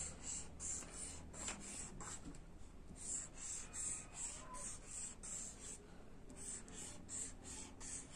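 Felt-tip marker drawing a zigzag line on paper laid on a clipboard: faint, short rubbing strokes of the tip on the paper, about three a second.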